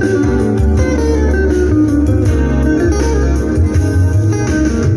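Guitar music playing back from an old cassette tape on an Aiwa AD-L200 stereo cassette deck, heard through loudspeakers, with a steady bass line underneath.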